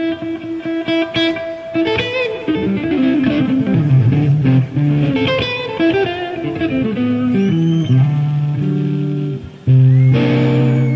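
Background music led by guitar, playing a melodic line with bent notes over sustained bass notes, getting louder a little before the end.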